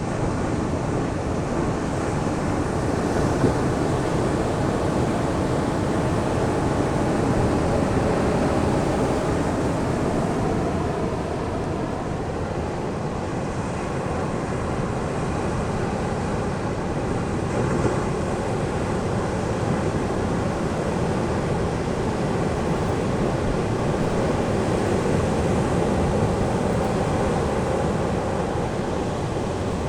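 Ocean surf breaking on a sandy beach, a steady wash of waves that swells and eases every several seconds, with wind rumbling on the microphone.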